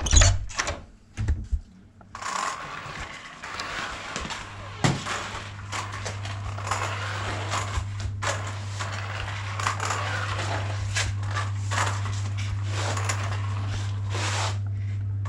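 A loud knock, then clattering and clicking of small hard objects being handled, with a steady low hum that starts about five seconds in.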